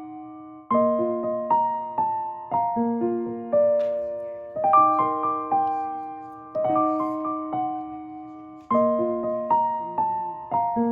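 Background music: a gentle piano melody, notes struck in short phrases that repeat about every two seconds, each note dying away.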